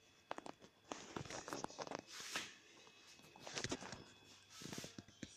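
Smoker parts being handled: faint clusters of light clicks and knocks, with a longer scrape about two seconds in and another near the end.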